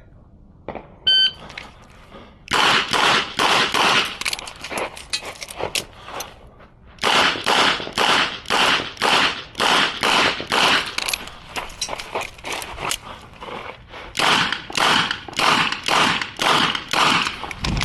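A shot-timer beep, then a Smith & Wesson 929 9 mm revolver fired fast in three strings of shots about a third of a second apart, with short pauses between the strings for reloading.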